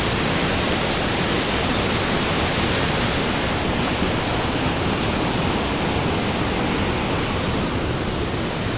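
Steady rush of a woodland waterfall, white water cascading over rocks.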